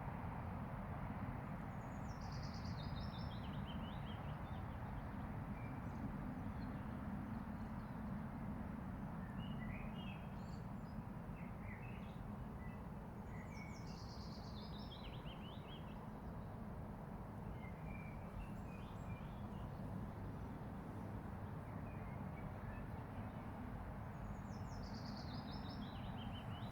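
A songbird repeats a short song that slides down the scale, three times, about eleven seconds apart, with a few scattered chirps in between. Behind it is a steady low rumble of distant road traffic.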